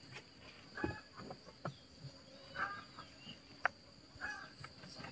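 Quiet background of three short animal calls, about one every second and a half to two seconds, over a steady high-pitched buzz. Two sharp clicks come between the calls.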